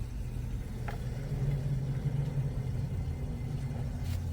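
Grundfos Comfort System Alpha hot-water recirculation pump running just after being switched on: a steady low hum, with a faint click about a second in.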